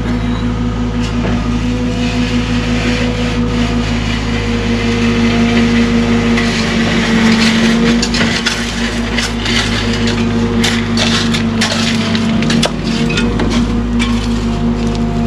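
Cat excavator's diesel engine running steadily, with crunching and cracking from about six seconds in as the bucket digs.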